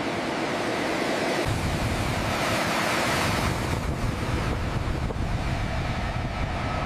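Jet engines of a twin-engine airliner taxiing: a steady rushing noise, with a deeper rumble coming in about a second and a half in.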